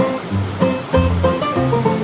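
Background music: upbeat plucked-string tune, banjo-like over a bass line, with an even rhythm of quick notes.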